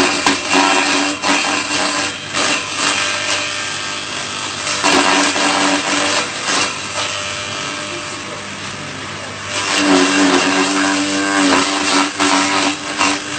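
Electric-motor-driven grass chopper running with a steady hum, its blades shredding grass stalks as they are fed into the hopper. The chopping comes in three loud spells, with quieter running in between.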